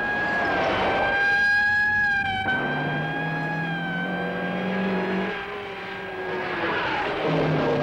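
Cars in a chase: engine noise with one engine revving up for a few seconds in the middle, and tyre and road noise swelling near the start and again near the end. A steady high-pitched tone runs under it throughout.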